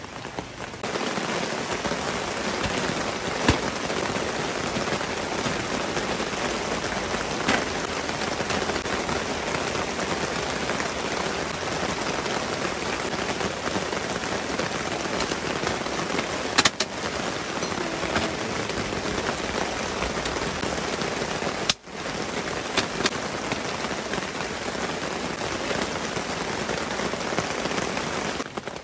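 Steady, heavy rain falling in an even hiss, with a few sharper drop taps standing out. It briefly cuts out once a little past two-thirds of the way through.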